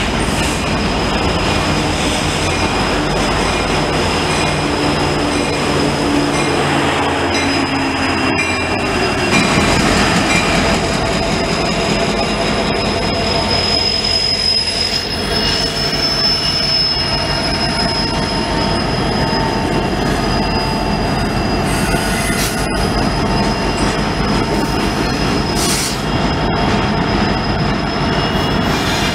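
A freight train rolling slowly through rail yard tracks, its steel wheels giving a steady high squeal over a continuous rumble of cars on the rails. A diesel locomotive engine's low drone is heard under it for the first several seconds.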